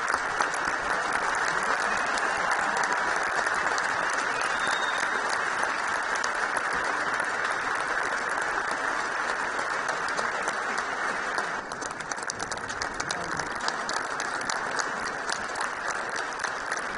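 Large audience applauding, a dense continuous wash of clapping. About two-thirds of the way through it turns slightly quieter and duller.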